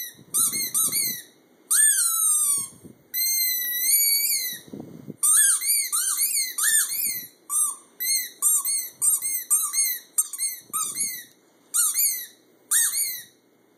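Rubber squeaky dog toy squeezed over and over in quick runs of short, high squeaks. A few squeaks are drawn out and slide in pitch, and there are soft rustles between the runs.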